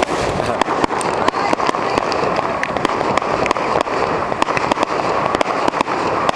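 Fireworks going off: a rapid, irregular string of sharp bangs and crackles, several a second, over a steady background din.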